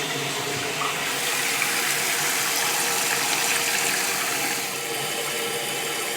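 Toilet tank refilling through a newly installed Fluidmaster 400A fill valve: a steady hiss of water rushing in. It swells about a second in and eases back a little near the end.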